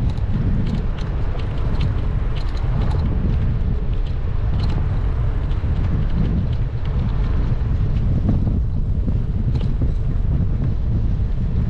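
Wind buffeting the microphone while riding a bicycle: a steady low rumble, with scattered faint ticks.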